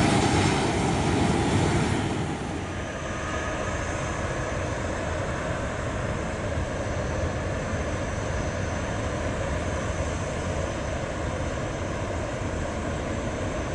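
Turbofan engines of a taxiing Boeing 737 airliner running at low power, louder for the first couple of seconds, then dropping to a steady lower rumble with a faint high whine as the jet moves away.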